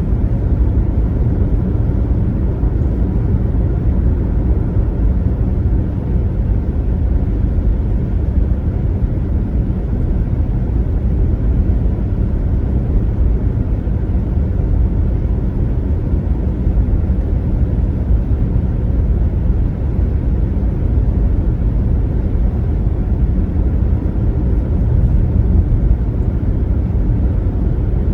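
Steady low road rumble of a car driving at highway speed: tyre and engine noise with no changes or distinct events.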